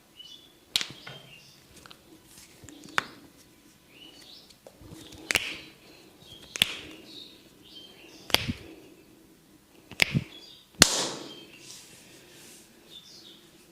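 Sharp, slapping hand strikes of a barber's percussive head and neck massage, about seven of them a second or two apart, some with a dull thud beneath and one doubled. Faint bird chirps sound in between.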